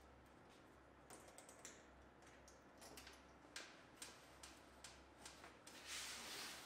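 Faint clicks of a metal school locker's lock being worked by hand, a dozen or so in an uneven run, then a longer, noisier sound near the end as the locker door is pulled open.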